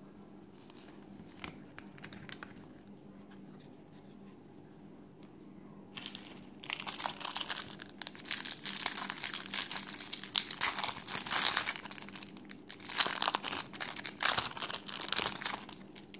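A few faint taps of cards being handled, then from about six seconds in, loud crinkling and tearing as a thin translucent trading-card pack wrapper is torn open and worked apart by hand, in two long stretches.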